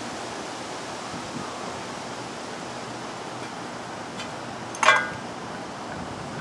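Steady outdoor background hiss, with one short, sharp pitched squeak about five seconds in.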